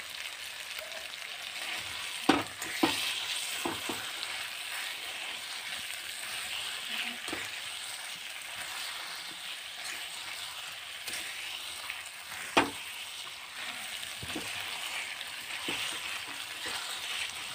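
Boiled potatoes frying in oil in an aluminium kadhai while being mashed with a metal potato masher: a steady sizzle, with scattered knocks of the masher against the pan, the loudest about two-thirds of the way through.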